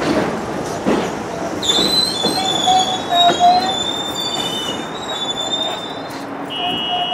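New York City Subway R62A train rolling slowly along the platform over the terminal's track switches, its steel wheels squealing against the rails. Several high squeal tones come in about a second and a half in and hold for a few seconds over the rumble of the train on the track, and a shorter, lower squeal follows near the end.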